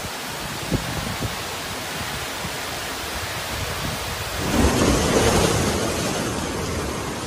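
Typhoon wind and rain as a steady noise, with a couple of faint knocks early. About four and a half seconds in it gives way to louder, gusting wind with rumbling bursts on the microphone and waves breaking on the shore.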